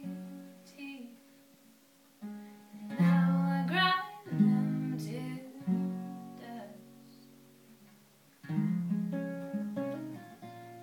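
Acoustic guitar strummed and picked in slow chords, each left to ring and fade before the next, the last one ringing out near the end.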